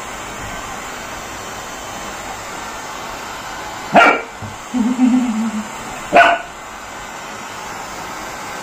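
Pet dog barking twice, about four and six seconds in, with a short low sound between the barks, over a steady background hiss.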